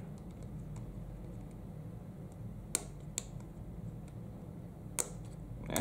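Sharp clicks and taps from a Panasonic Lumix GH5 camera body being handled, with fingers working at the small doors and flaps on its side. Faint ticks come first, then four distinct clicks in the second half, over a low steady hum.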